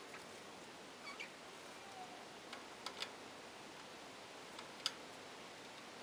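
Budgerigars giving a few short, soft chirps and sharp clicks, scattered and sparse over faint hiss; the sharpest click comes near the end.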